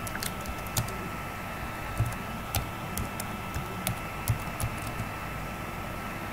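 Computer keyboard typing: single keystroke clicks at an irregular pace, about two or three a second, over a faint steady background hiss with a thin high tone.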